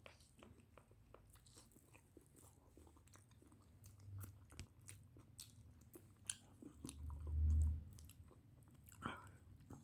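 A person chewing and crunching food close to the microphone, with many small crisp mouth clicks. A low rumble lasting about a second comes about seven seconds in and is the loudest sound.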